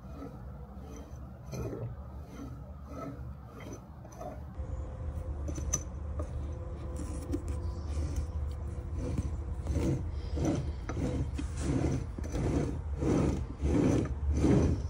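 Open 236cc Tillotson engine turned over by hand: the crank and cam gears mesh and the moving parts rub and rasp in repeated short strokes, about one a second at first, then quicker and louder in the second half. The rotation checks that the clearanced rod and crank now spin freely.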